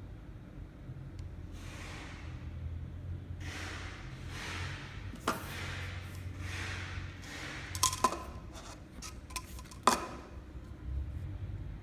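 A steady low machine hum with several soft hissing swishes, then a few sharp clicks and clinks of hard parts being handled, one ringing briefly.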